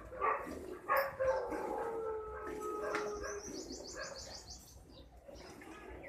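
Animal calls: a long steady call of about two seconds starting about a second in, and a quick high bird trill about three seconds in.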